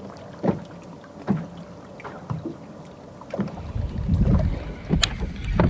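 Scattered light knocks and taps on a fishing boat, with water around the hull. About two-thirds in, a low rumble of wind on the microphone comes in, and there are two sharp clicks near the end.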